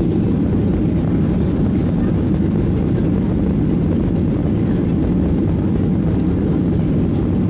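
Steady low roar of a Ryanair Boeing 737 in flight, heard inside the cabin: jet engine noise and rushing air, even and unbroken.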